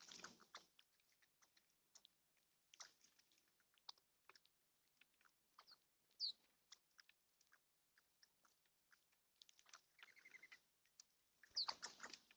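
Birds pecking and cracking seed at a feeder: a faint scatter of quick clicks and crunches, with a few short chirps, one about six seconds in and more near the end.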